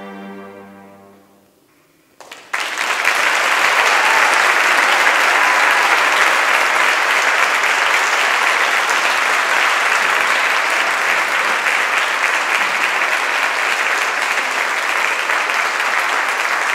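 Cello ensemble's final held chord dying away, then a brief hush, and audience applause breaking out about two seconds in and carrying on steadily.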